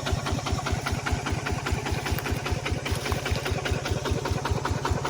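Kubota RT155 Plus single-cylinder diesel engine running steadily, a regular chugging at about ten firing pulses a second.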